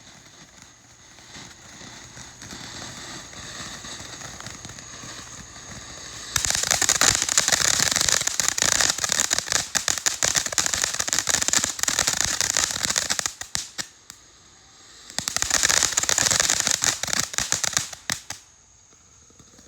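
Ground firework going off: a softer hiss for about six seconds, then loud, dense crackling that dies down briefly, crackles again and stops near the end.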